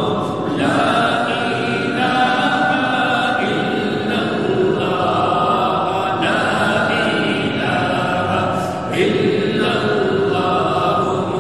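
Chanting of an Arabic devotional qasida: a melodic voice holding long sung notes that move from pitch to pitch, with no instruments showing.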